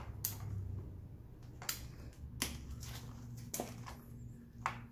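Five sharp clicks at uneven intervals as a Torx key and small parts are handled at the throttle position sensor on a Suzuki GSX-S1000's throttle body, over a steady low hum.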